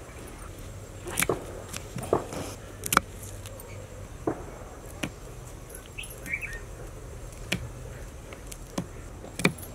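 Knife chopping green chillies on a wooden chopping block: short, sharp knocks at an uneven pace, about one a second.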